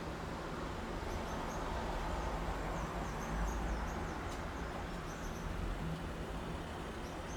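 City traffic as a steady low rumble, with birds chirping over it in many short, high calls.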